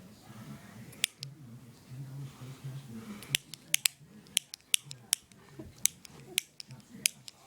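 A series of sharp, irregular clicks: a pair about a second in, then about ten more coming faster from about three seconds on, over a low, wavering sound underneath.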